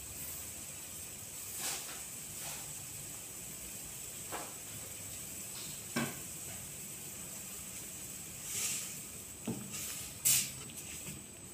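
Tamarind fish broth simmering in a metal wok: a steady bubbling hiss with occasional pops. Near the end a wooden spatula stirs the pot, giving the loudest knock against the wok.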